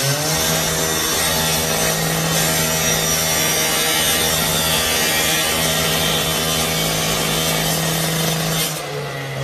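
Cordless angle grinder cutting into a metal camera pole: the motor spins up at the start, then runs at a steady pitch under a harsh cutting hiss, and eases off near the end.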